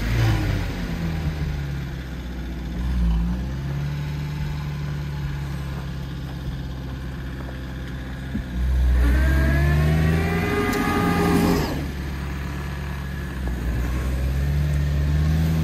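Moskvich 407's four-cylinder engine revved repeatedly under load as the car tries to pull out of deep snow, its driven rear wheel spinning. There are short rev-ups near the start and about three seconds in, then a long, high rev of nearly three seconds about nine seconds in, and another near the end.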